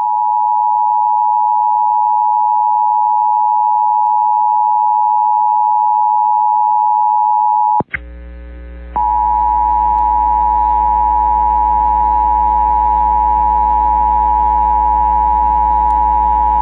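Emergency Alert System attention signal: the steady two-tone alert tone. About eight seconds in it cuts off with a click, and after about a second of low mains hum it sounds again over that steady hum.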